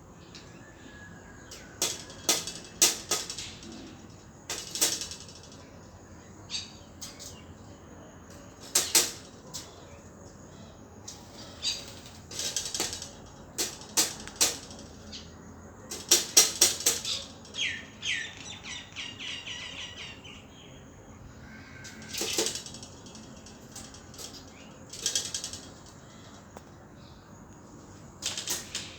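Birds chirping in short, harsh bursts scattered every few seconds, with a quick run of repeated notes about two-thirds of the way through.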